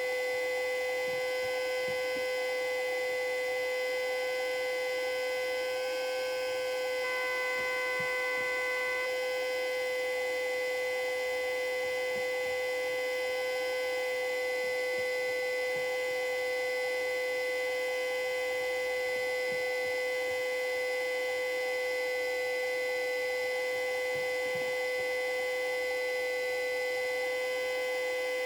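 Custom-built Federal Signal Model 2A siren sounding the steady full-alert signal: one loud, unwavering tone held without rising or falling.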